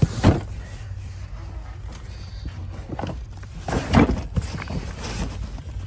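A few short knocks and thumps over a steady low hum.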